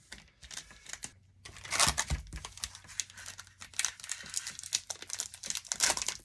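Foil wrapper of an Upper Deck Series One hockey card pack crinkling and tearing as it is handled and opened by hand, starting about two seconds in with a sharp rustle and crackling on after that.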